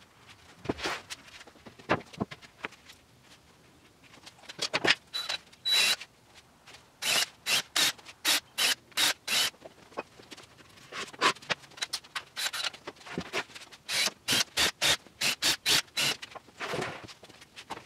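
Quick runs of short rubbing strokes, about three a second, starting a few seconds in and broken by pauses.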